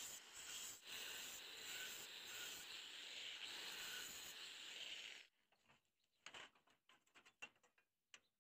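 Stick-welding arc crackling and hissing steadily, cutting off abruptly about five seconds in, followed by a few light clicks and taps.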